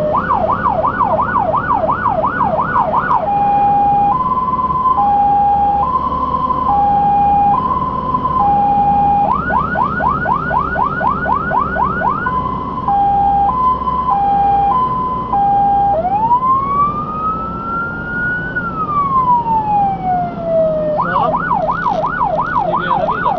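Fire engine's electronic siren cycling through its tones over the truck's engine and road noise. It opens on a fast yelp, about three rising sweeps a second, then switches to a two-tone hi-lo and back to yelp. About two-thirds of the way through comes one slow wail that rises and falls, then the yelp returns near the end.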